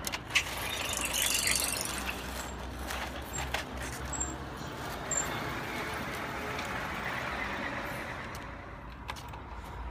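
Large plastic toy trucks being handled and pushed on concrete: plastic clatter and rolling wheels, with a sharp knock about a third of a second in as pipes are taken off a trailer.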